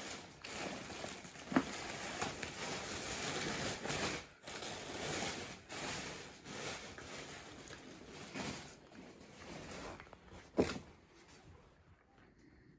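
Plastic packaging bag crinkling and rustling as a jacket is pulled out of its cover, with one sharp loud crackle about ten seconds in; the rustling dies down near the end.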